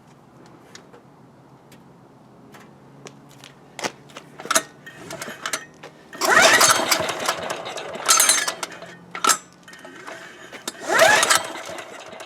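Hand pull-starting an ETQ DG7250LE generator's single-cylinder diesel engine: a few light clicks, then from about halfway on several hard pulls of about a second each, the engine spinning up quickly and rising in pitch each time without catching.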